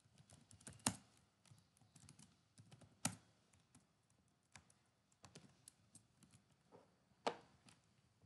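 Faint computer keyboard typing: irregular runs of light keystrokes, with a few sharper, louder clicks standing out about a second in, about three seconds in and near the end.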